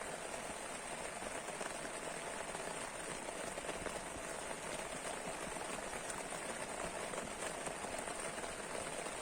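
Steady rain falling, an even hiss flecked with many fine drop ticks.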